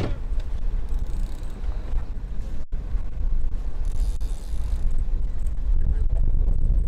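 Steady low rumble of wind buffeting the microphone over a boat's engines running, on open sea. It cuts out for an instant about two and a half seconds in.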